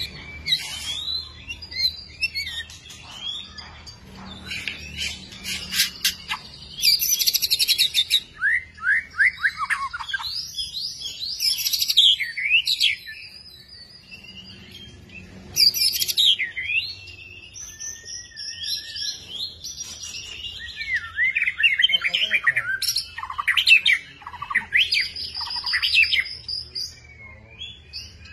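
Long-tailed white-rumped shama singing its varied song. Clear whistled phrases alternate with rapid series of falling notes and harsh rattling passages, with short pauses between phrases.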